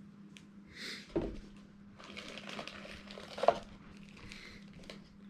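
Plastic packaging crinkling and rustling as small accessories are unwrapped by hand, with a soft thud a little over a second in and a sharper knock about three and a half seconds in.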